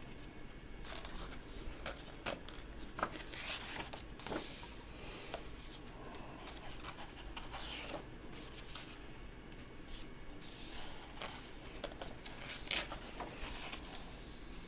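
Pages of a large hardcover book being turned one after another: paper rustling and sliding in several separate sweeps, with light taps and clicks of handling in between.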